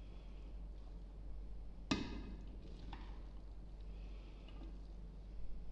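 A spoon stirring pasta salad in a bowl: soft stirring, with a sharp knock of the spoon against the bowl about two seconds in and a fainter one about a second later.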